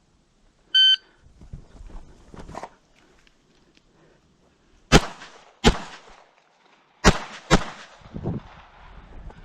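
Competition shot timer gives one short beep to start an IDPA stage. About four seconds later come four 9mm pistol shots in two pairs, each pair under a second apart.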